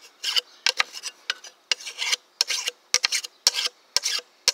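Flat steel file rasping across the back edge of a cultivating hoe's steel blade in short, quick strokes, a few a second: the hoe is being sharpened by hand.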